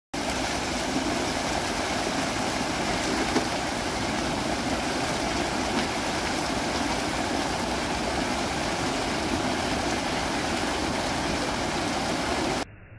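Steady rushing and splashing of a row of fountain jets arching water over a footbridge into a lake. The sound cuts off suddenly near the end.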